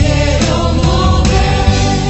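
Spanish-language Christian worship song: singing over a full band with sustained bass, keys and percussion.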